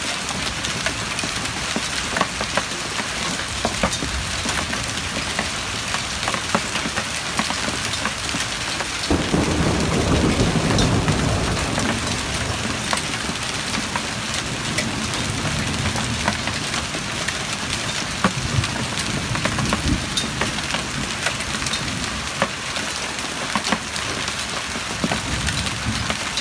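Heavy rain mixed with small hail striking a paved driveway, a steady hiss dotted with many sharp ticks of hailstones. About nine seconds in a low rumble of thunder swells up, then fades away over the next several seconds.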